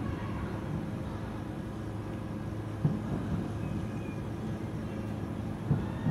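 Distant aerial firework shells bursting as dull low thuds, two clear ones about three seconds apart, over a steady low hum.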